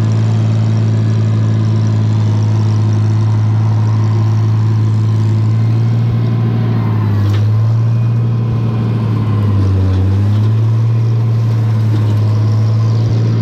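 Farmall 706 tractor engine running steadily under load. Its pitch dips briefly twice, about seven seconds in and again near ten seconds, as the engine pulls down taking a clump of hay, then recovers.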